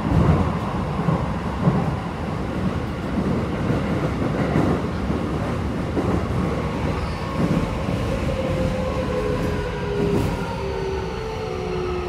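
Keikyu 1000 series subway train running, heard from inside the car: steady wheel and tunnel rumble. From about eight seconds in, the Mitsubishi IGBT-VVVF inverter's whine comes in as several tones falling in pitch, as the train brakes for the station.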